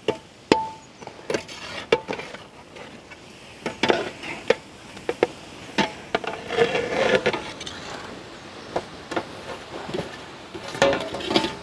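Boiled clam meat being scraped off an aluminium plate into a kadai of fried masala: scattered clicks and knocks of the plate rim and a metal spatula against the pan, with a denser rush of sliding about six seconds in.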